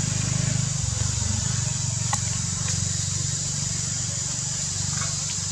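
A motor engine running steadily with a low drone, under a constant high hiss, with a brief faint chirp about two seconds in.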